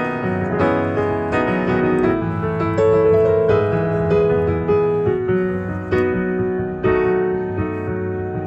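Solo digital piano playing an instrumental passage of the ballad: chords struck roughly once a second and left to ring, over a steady bass.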